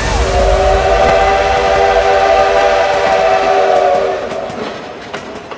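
Train horn sounding one long, steady chord that fades after about four seconds, over a low rumble of a train, with faint clicks as it dies away.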